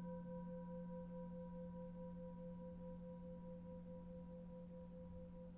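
Soft singing-bowl drone: several steady held tones, one with a slight wavering beat, slowly fading.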